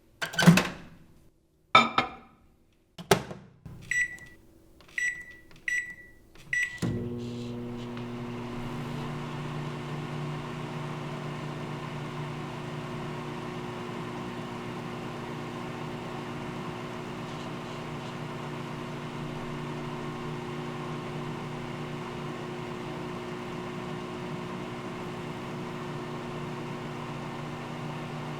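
Microwave oven: three sharp clunks, then four short keypad beeps about a second apart. About seven seconds in, the oven starts and runs with a steady low hum.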